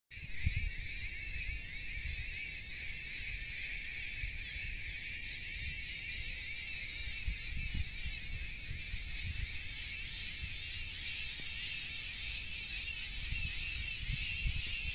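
Steady chorus of insects chirping, with a higher chirp repeating a few times a second on top. Wind rumbles against the microphone in uneven gusts.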